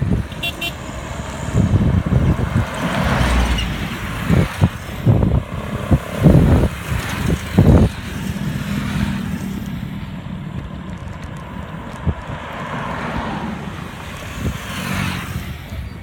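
Motor vehicles passing close on a paved road, twice swelling and fading, over low gusts of wind buffeting the microphone of a moving bicycle.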